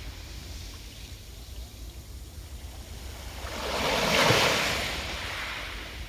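Small sea waves washing onto a pebble beach. After a lull, one wave breaks and surges up the shingle about four seconds in, swelling to a peak and then fading as it draws back.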